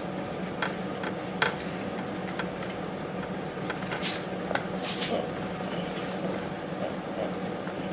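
A table knife scraping margarine across halved multi-seed buns, with a few short scrapes and clicks of the knife, over a steady low hum.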